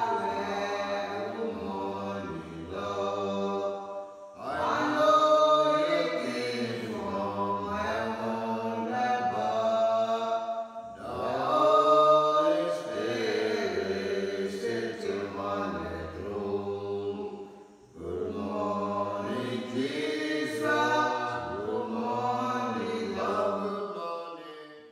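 A group of voices singing a worship song together at morning devotions, in long phrases with short breaks about four, eleven and eighteen seconds in.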